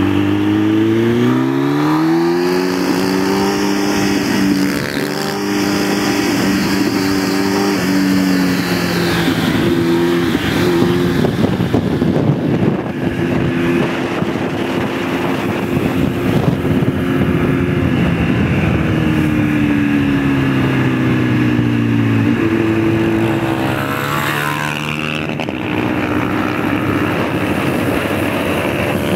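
Motorcycle engine under way, pulling up through the gears in the first several seconds, then cruising steadily with wind rushing over the microphone, easing off and picking up speed again near the end.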